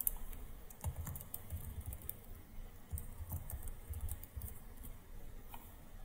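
Typing on a computer keyboard: a scatter of short key clicks at an uneven pace, as short IDs are entered.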